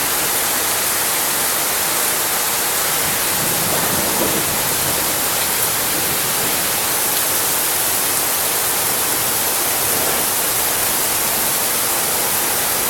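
Heavy rain pouring steadily onto a flooded street: a dense, even hiss.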